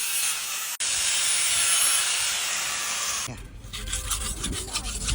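A sickle blade being sharpened by hand. A steady scraping hiss gives way, about three seconds in, to quick back-and-forth strokes, roughly four a second.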